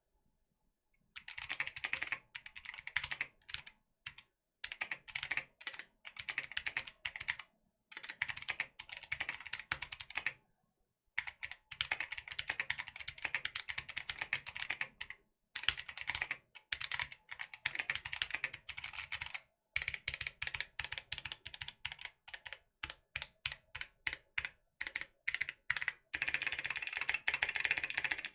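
Typing on a mechanical keyboard with Kailh Box Jade clicky switches and ABS keycaps: fast runs of sharp clicks, broken by short pauses. The switches are unlubed, so every keypress gives a crisp click.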